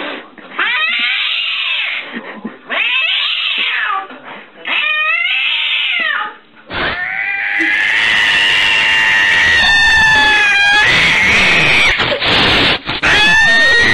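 A cat yowls four times in a row, each call about a second and a half long and rising and falling in pitch. Then, about seven seconds in, a ginger cat, crouched with ears flattened and mouth open, gives a much louder, drawn-out growling yowl, the defensive cry of a frightened cat, broken only briefly near the end.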